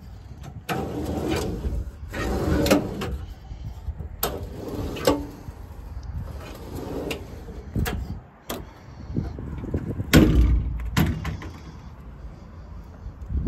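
Metal compartment doors on a truck's service body being opened and shut: latches clicking and doors banging about eight times, with rattling between.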